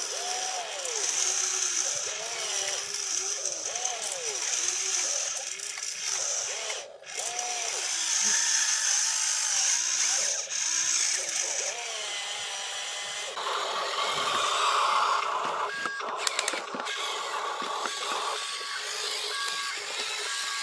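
Electric motors of a toy RC excavator whining, the pitch rising and falling over and over as the boom and bucket move. From about two-thirds of the way in there is a steadier, higher motor whine.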